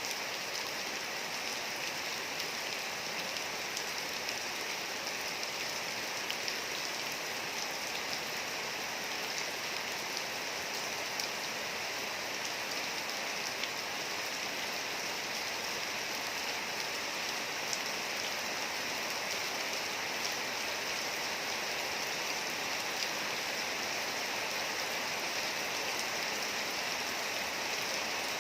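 Steady rain falling on a hard surface: an even hiss with many small drop ticks.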